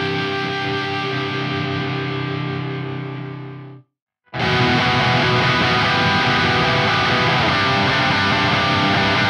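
Electric guitar played through a Neural DSP Quad Cortex amp and effects modeller: a held chord rings and fades, then breaks off into silence just under four seconds in. About half a second later a new, louder and busier passage starts.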